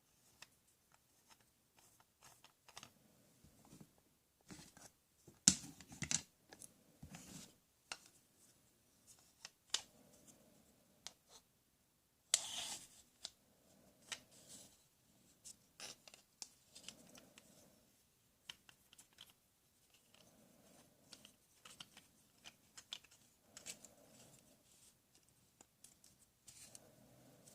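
Plastic toy tools being handled: scattered faint clicks, taps and short scrapes. The loudest clacks come about five to six seconds in, and a brief scrape about twelve seconds in.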